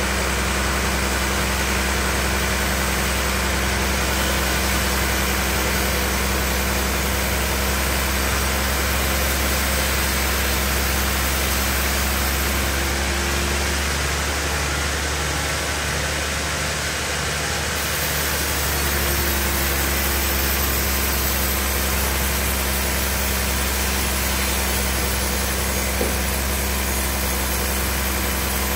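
A large log band saw running steadily as its blade rips through a big trembesi log, with a deep, even hum under a dense hiss of cutting. About halfway through the sound shifts for a few seconds: the low hum dips while the high hiss grows, then it settles back.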